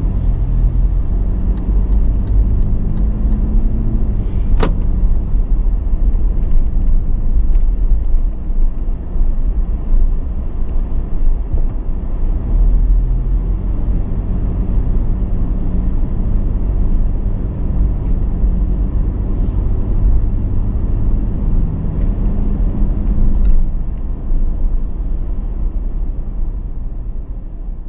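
Toyota Land Cruiser Prado driving along a street: steady engine and road rumble, with a single sharp click about four and a half seconds in. The sound fades out near the end.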